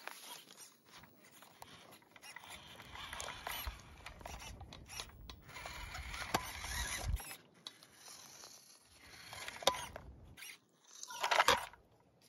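Small electric RC crawler truck's motor and gearbox whirring in short, uneven bursts as it crawls over tree bark, with scattered clicks and a louder burst near the end.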